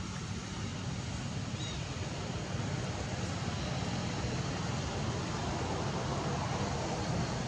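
Steady outdoor background noise with a low rumble, like distant traffic, and a faint short chirp about two seconds in.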